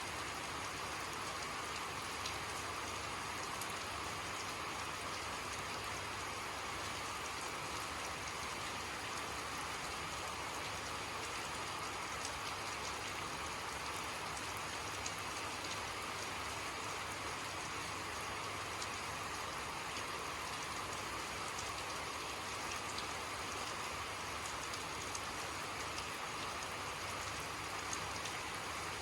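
Steady rainfall, with small drops ticking against a surface.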